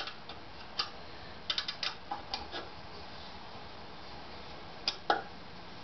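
Small metal clicks and taps from an Allen key and bolt being worked on a metal bed bracket. They come in a few quick clusters with pauses between, the loudest two close together near the end.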